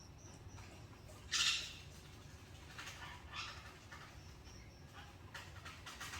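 Pet birds calling: a short, loud, harsh squawk about a second in, then softer, scattered calls and faint high chirps.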